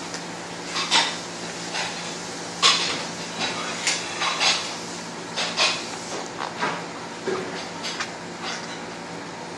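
Kitchen utensil clinking and scraping against dishware in irregular short knocks while chicken is mixed with its spice-and-yogurt marinade; the loudest knock comes a little under three seconds in.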